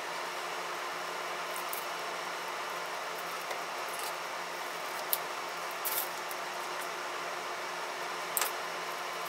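Rubber screen spline being pressed by hand into the channel of a screen frame: a few faint clicks and scrapes over a steady hiss.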